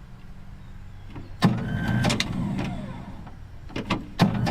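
Starter motor on a 1959 Dodge D-300 truck cranking the engine in two bursts: it kicks in suddenly about a second and a half in and turns for about two seconds, then cuts in again near the end.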